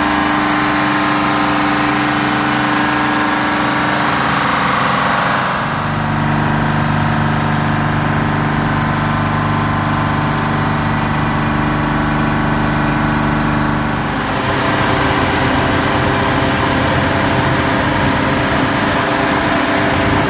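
Detroit Diesel 12V71 two-stroke V12 running steadily on a 235 kW generator set. The sound turns deeper about six seconds in and brighter again about fourteen seconds in.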